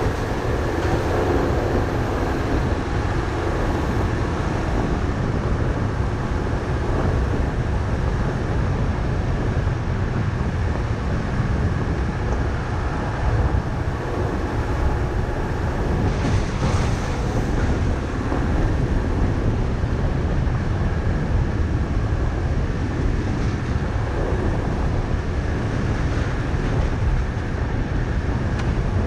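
Car driving steadily along a gravel road: a continuous low rumble of tyres on gravel and engine noise.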